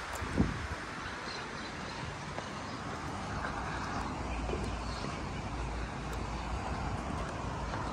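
Steady outdoor background noise of wind, with low rumbling from wind on the microphone in the middle and a single short thump about half a second in.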